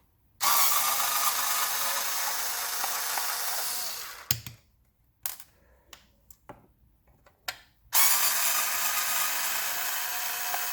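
Black & Decker Li2000 cordless power screwdriver running twice, each run a steady motor whine lasting about three and a half seconds, with a few small clicks and knocks in between.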